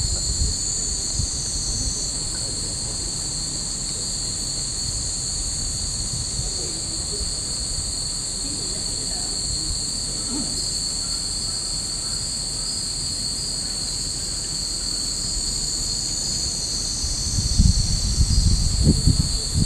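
Cicadas droning in a dense, steady, high-pitched chorus. Low rumbles come in near the end.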